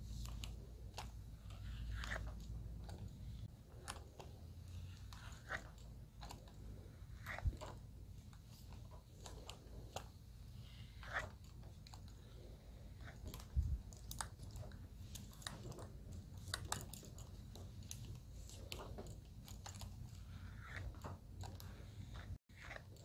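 Hair straightening iron pressing and sliding down sections of chemically softened hair in the pressing stage of a magic-straight treatment, with irregular small clicks and crackles from the plates and the comb moving through the hair.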